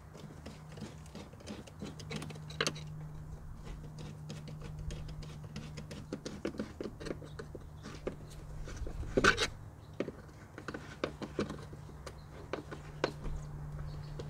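Small clicks and taps of a screwdriver and plastic intake parts as an air-intake hose clamp is worked and tightened, with one sharper clatter about nine seconds in. A faint steady low hum runs underneath.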